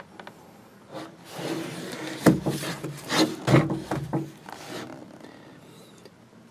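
Cardboard box rubbing and scraping as it is turned over in the hands, with two louder knocks about two and three and a half seconds in.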